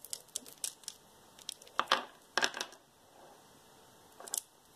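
Beaded necklaces being handled: a few scattered clicks and rustles of beads and packaging, the loudest about two seconds in.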